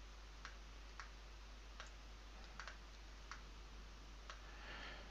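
Faint computer mouse clicks, about seven scattered over five seconds, over a steady low hiss and mains hum.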